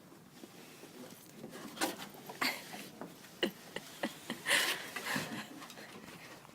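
An Aussie Bulldog moving about, making a series of short, irregular scuffling noises, the loudest about four and a half seconds in.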